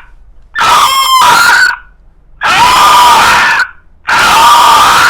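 A person imitating an animal's cry with their voice: three long, loud, high-pitched calls of about a second each, roughly a second apart.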